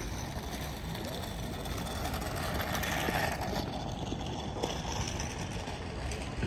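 Steady city street traffic noise, swelling briefly about three seconds in as a vehicle passes.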